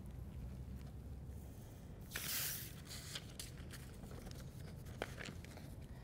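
A short rustle of a paper sheet being handled, about two seconds in, followed by a few soft clicks and taps of bare hands and feet on a wooden stage floor.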